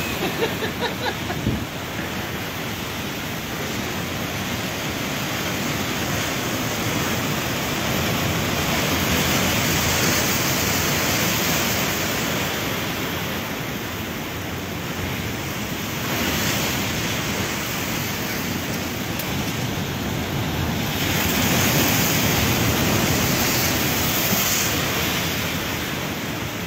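Heavy surf from a rough sea, waves breaking and seawater rushing over the ground. The roar swells louder a few times as the waves surge in.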